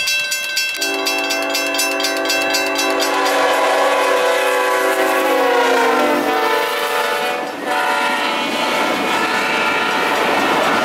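Railroad crossing bell ringing as a train approaches sounding its horn, a chord of several notes. The horn's pitch drops as the train passes, and it breaks off briefly past the middle before sounding again over the rumble and clack of the train rolling through the crossing.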